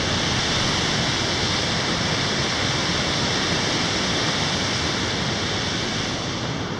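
Steady rushing of a flood-swollen river.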